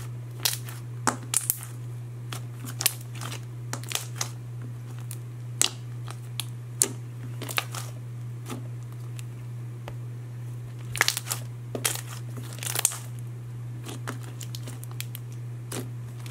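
Hands kneading and pressing a thick slime, making irregular sharp pops and clicks as air bubbles burst, with a cluster of louder pops about two-thirds of the way through. A steady low hum lies underneath.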